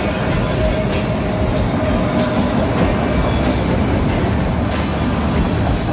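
Freight train of autorack cars rolling past close by: a steady rumble and clatter of steel wheels on rail with faint regular clicks. A thin wheel squeal dies away within the first second.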